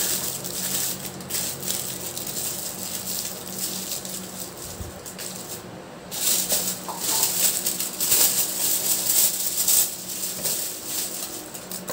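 Aluminium foil crinkling and rustling as it is torn, crumpled and folded around a whole fish, louder and busier in the second half. A faint low steady hum sits underneath in the first half.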